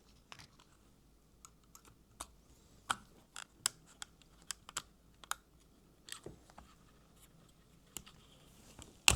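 Scattered light clicks and taps of small parts being handled and clipped together as a Hornby Q6 OO gauge model locomotive is reassembled, irregular and about one or two a second, with a sharper click near the end.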